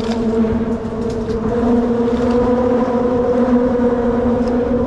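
A steady engine drone: an even, unchanging hum over a low rumble.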